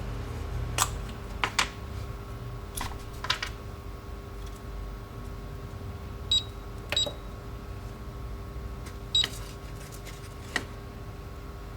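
Three short high electronic beeps from a homemade soldering station's controller, among scattered clicks and knocks of handling, over a faint steady hum.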